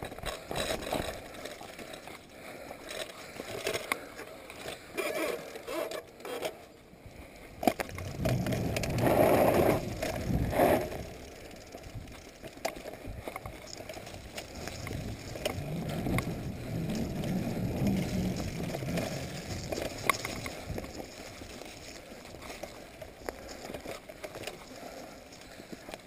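Mountain bike riding along a dirt forest singletrack: tyres rolling over soil and leaves, with the bike rattling over bumps and louder rough stretches now and then.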